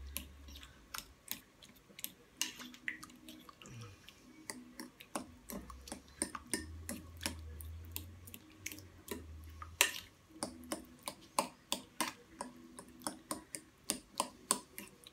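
A metal fork clinking and tapping against a glass bowl, irregular sharp clicks a few times a second, as canned tuna is broken up and mixed into chopped tomato. The clicks are loudest about ten seconds in.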